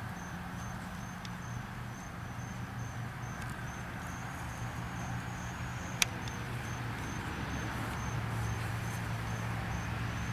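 An insect chirping in a steady rhythm, about two short high chirps a second, over a steady low hum. A single sharp click about six seconds in.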